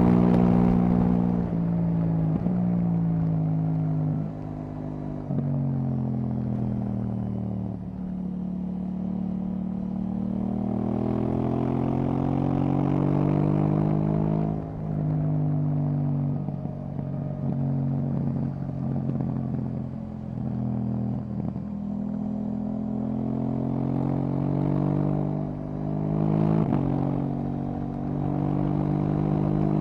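KTM 790 Duke's parallel-twin engine through an Akrapovic exhaust, heard on board while riding. The engine note falls with several sudden steps in the first few seconds, climbs steadily as the bike accelerates, then rises and falls through further gear changes.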